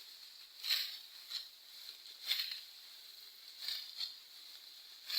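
Dry plant stalks rustling in several sharp swishing strokes about a second or so apart, the sound of wheat being handled or cut by hand.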